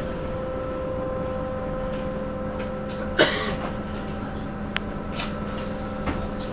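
Heuliez GX 327 city bus idling while standing, a steady engine hum with a constant tone. About three seconds in comes one short, sharp burst of noise.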